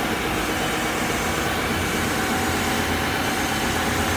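Sandingmaster wide-belt sanding machine and its dust extractor running steadily, a constant machine noise with a low hum, while a board feeds through on the conveyor for a very light sanding pass.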